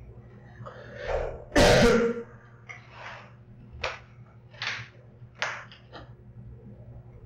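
A person coughing: one loud cough about a second and a half in, then several shorter, fainter coughs over the next few seconds.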